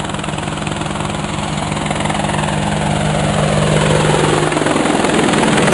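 Quadcopter drone rotors buzzing as it lifts off: a steady low hum under a whooshing sweep that falls in pitch and grows louder toward the end.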